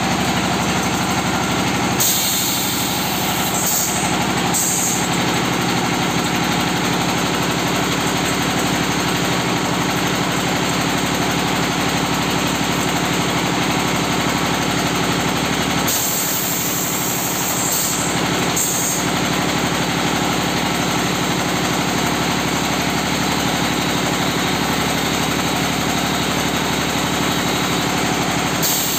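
Automatic red-brick press machine running steadily. A burst of high rushing noise comes about two seconds in and again about sixteen seconds in, each lasting a few seconds.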